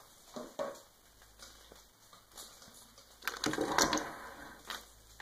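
Small hard plastic Littlest Pet Shop figures clicking and clattering against each other and the table as hands pick them up and shuffle them, with a busier run of clicks about three seconds in.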